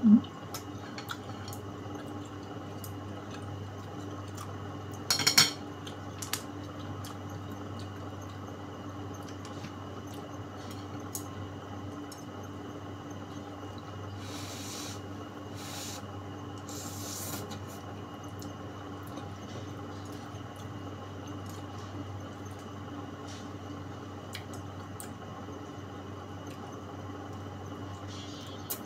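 A person eating pancit noodles with chopsticks: light chopstick clicks against the bowl, a louder clatter about five seconds in, and short slurps as noodles are sucked in, a little past halfway and again near the end, over a steady low hum.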